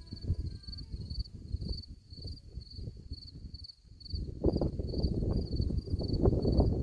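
A cricket chirping steadily, about three short high chirps a second, under wind rumbling on the microphone. The wind drops away a little past the middle and then picks up again.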